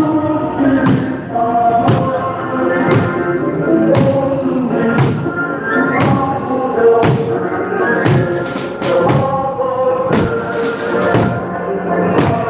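Korean barrel drums (buk) beaten together about once a second by a marching drum troupe, keeping time under a song sung by many voices.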